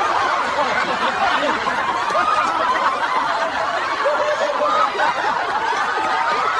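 Several people laughing hard together, overlapping and unbroken.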